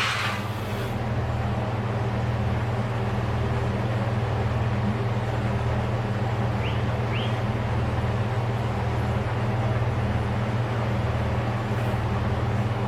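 An engine running steadily at a constant low speed, a continuous low drone with a slow pulse underneath. Two brief high chirps come about seven seconds in.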